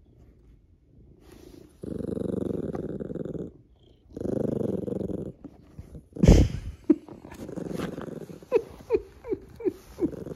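Domestic cat purring loudly right at the microphone, in two long stretches. A sharp bump comes about six seconds in, and near the end a run of short falling squeaks.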